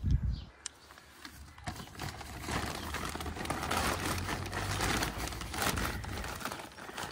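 Compost being handled and spread into a plant container: a low thump at the very start, then a dense crackling rustle from about two seconds in until near the end.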